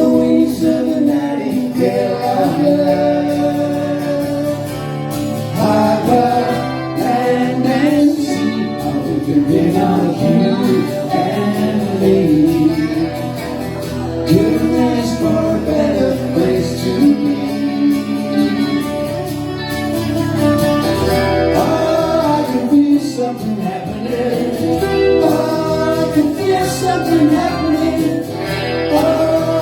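Live band performing a pop song: sung vocals over instrumental accompaniment.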